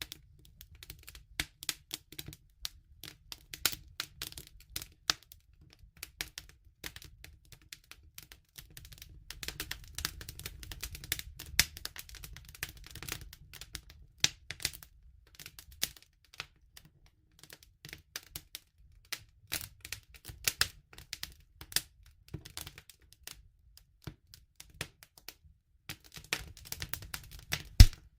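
Campfire crackling: a steady, irregular patter of sharp snaps and pops, a few of them louder, over a low rumble.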